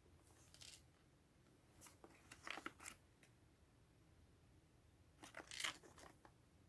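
Toy packaging being opened by hand: faint crackles and tearing of cardboard and plastic in three short clusters, the loudest a little past five seconds in.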